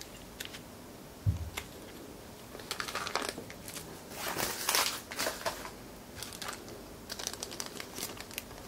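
Plastic packaging crinkling and rustling as small parts are handled, in irregular bursts of crackle and small clicks. There is a thump about a second in.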